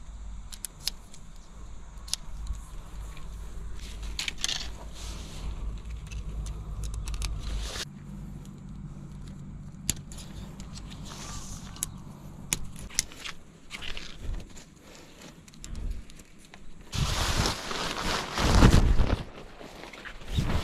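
Tent being pitched: light metallic clicks and rattles as aluminium tent poles are handled and the tent's plastic hooks are clipped onto them. About three-quarters of the way in, a loud rustling of the nylon fly sheet being thrown over the frame.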